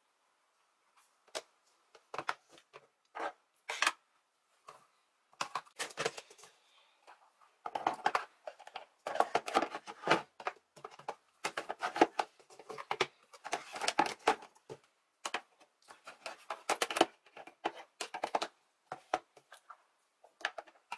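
Makeup palettes and products being handled and slotted into a wooden desktop organizer: a run of small clicks, taps and knocks. They are sparse at first and come thick and fast from about eight seconds in.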